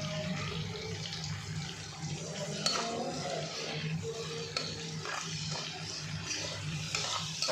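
Carrots, ginger and garlic frying in oil in a pan, sizzling steadily while a spoon stirs and knocks against the pan, with one sharp clink about two and a half seconds in. A steady low hum runs underneath.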